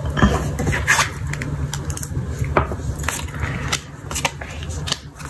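Tarot cards being slid across a cloth-covered table and dealt face up from a deck: a series of short slaps, snaps and scrapes, several per second, over a steady low hum.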